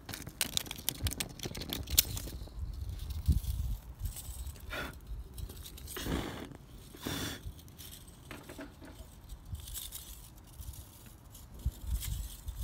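Irregular crackling and scraping, densest in the first couple of seconds, with a few short louder rushes about five, six and seven seconds in.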